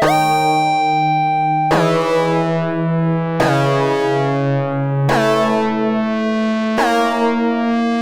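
Intro music: a synthesizer keyboard playing sustained chords, five struck in turn at an even pace. Each chord slides briefly into pitch at its attack.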